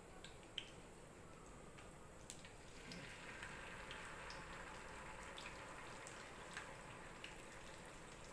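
Faint sizzle of hot frying oil as a batter-coated piece of steamed taro cake goes into the pan, swelling about three seconds in and holding, with a few light clicks.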